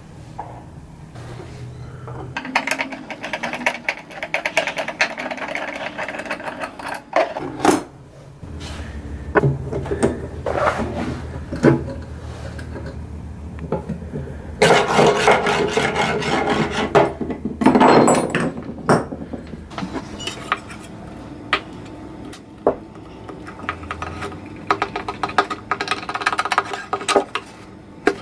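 Hand tools working on a wooden box: a screwdriver turning screws out of metal fittings, with stretches of scraping, clicks and knocks against the wood. Light taps of a hammer come near the end.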